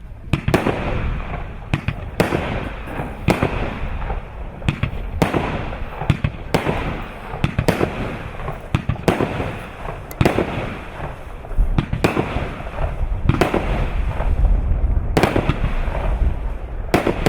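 Baldur firework going off: a steady series of sharp bangs, roughly one a second and sometimes two close together, over a continuous crackle and low rumble.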